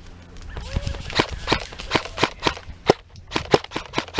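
Airsoft guns firing: a run of sharp cracks, about four or five a second, starting about half a second in.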